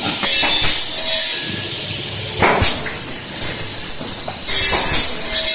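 Wood pallet foot pier nailing machine running: a steady high hiss with three bursts of sharp knocks about two seconds apart as it nails multilayer board blocks together.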